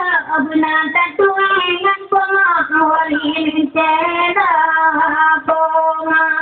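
A woman singing a slow melody in a high voice, with wavering pitch on the notes; the last two seconds are one long held note.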